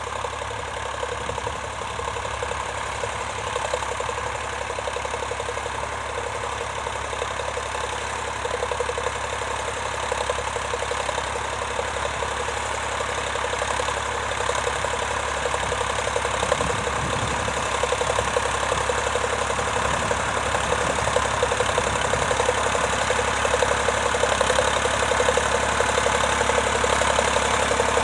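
Vintage tractor engine running steadily with an even firing beat, growing gradually louder.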